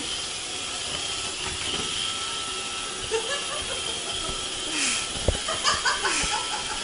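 Vacuum cleaner motor running steadily with a high whine and a hiss of airflow, with a few knocks and bumps near the end.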